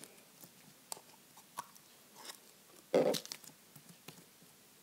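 Sticky white slime with foam beads being scraped and pulled out of a plastic tub by hand: scattered soft sticky clicks and crackles, with one louder noise about three seconds in.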